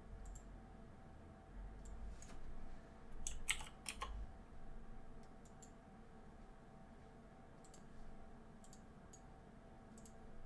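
Faint scattered computer mouse clicks and key presses, with a short cluster of louder clicks about three and a half seconds in.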